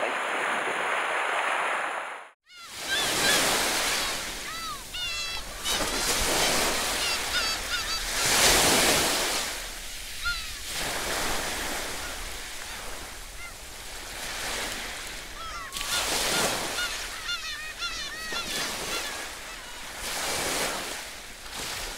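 Sea surf washing on a rocky shore, swelling and falling every few seconds, with birds calling over it in many short, rising-and-falling cries. About two seconds in, the sound cuts out for a moment and then starts again.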